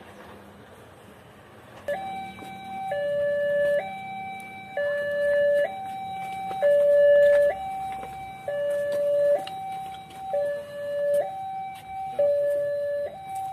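Railway level-crossing warning alarm sounding as the crossing closes: an electronic signal alternating between a higher and a lower tone, each held just under a second, starting about two seconds in.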